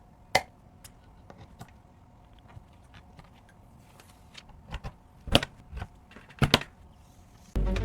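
Scattered clicks and knocks of computer parts being handled and fitted together during a PC build, a few sharper knocks in the second half. Music comes in near the end.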